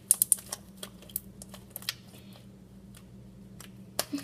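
Hands squeezing and stretching soft homemade borax slime, giving a scatter of small sticky clicks and pops, with a quick run of sharper clicks at the start and a couple more near the end.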